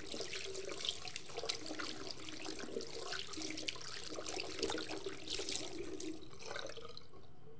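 Tap water running from a faucet into a porcelain basin, splashing as a cloth is rinsed under the stream; the splashing stops near the end.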